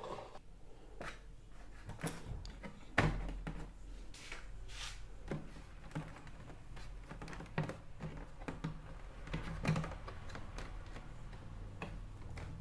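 Irregular knocks and clicks of things being handled, over a steady low hum.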